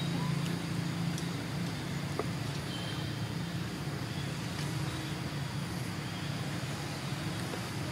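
Steady low motor hum, with a few faint short high chirps over it.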